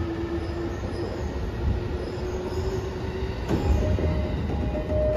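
E233-7000 series commuter train car standing at a platform with its doors open, with a steady hum. About three and a half seconds in there is a click, and then a chime of short repeated tones at two pitches begins: the warning before the doors close.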